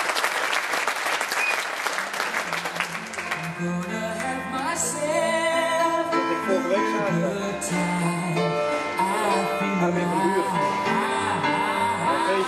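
Audience applause that dies away over the first three seconds or so, as music begins: a song with a singing voice over instruments.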